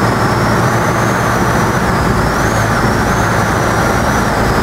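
Light aircraft's engine and propeller running steadily, heard from inside the cockpit on the landing approach. A faint high whine above it wavers up and down in pitch.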